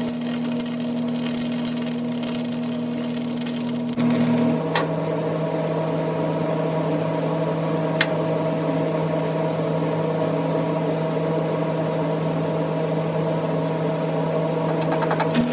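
A small engine running steadily at constant speed, an even hum, with a single sharp click about eight seconds in.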